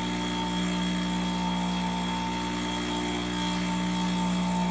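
Breville Dual Boiler espresso machine's vibratory pump running steadily, a quite noisy, even buzzing hum, as it pushes hot water through to preheat.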